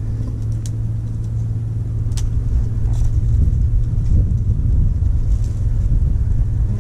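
Electric trolling motor running with a steady low hum and rumble, holding the boat against the bank. Two brief clicks sound over it, one early and one about two seconds in.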